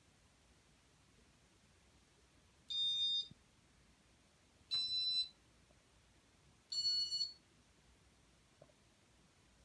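Three short, high-pitched electronic beeps about two seconds apart, from a 1997 Casablanca Stealth ceiling fan's W-32 Inteli-Touch electronics acknowledging commands from its wall control.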